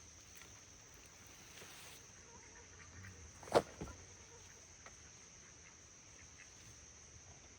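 Insects trilling in one steady high-pitched drone, with a single sharp click about three and a half seconds in and a softer one just after it.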